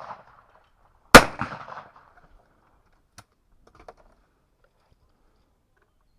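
A single shotgun shot at clay targets about a second in, with a short echoing tail, followed by a few faint clicks.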